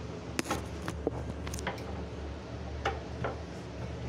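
A wooden rolling board being used to roll out rice-flour dough thinner: a few irregular light clicks and taps, over a low steady hum.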